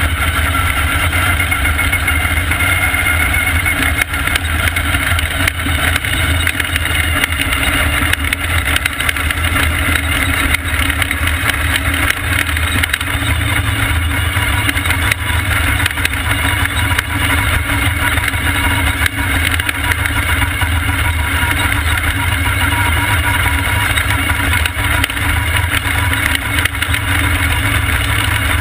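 Vintage supermodified race car's engine running hard under racing load, heard from a camera inside the open cockpit. It is a loud, steady drone with no big changes in pitch.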